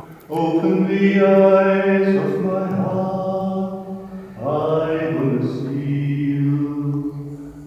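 A man's voice singing slow, long-held notes, chant-like, in two phrases with a short breath about four seconds in.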